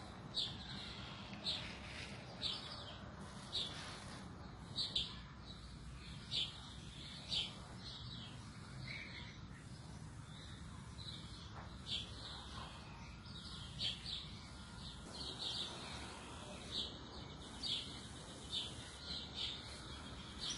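A bird chirping over and over, short high calls coming roughly once a second, over a steady low background noise.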